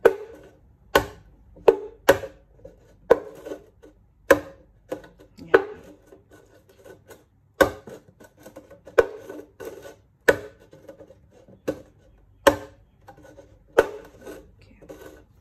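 A kitchen knife tip stabbing holes through the bottom of a thin clear plastic container: a sharp click at each puncture, about a dozen of them, roughly a second apart, to make drainage holes.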